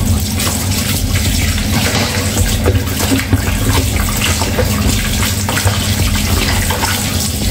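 Kitchen tap running steadily into a sink, the stream splashing over hands and a whole milkfish being rinsed in a plastic basin.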